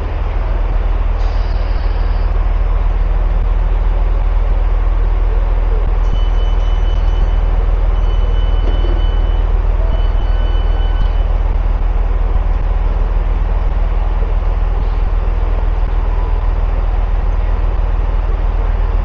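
Class 166 diesel multiple unit with its diesel engines running: a loud, steady low rumble. Between about six and eleven seconds in, a high steady tone sounds three times over it.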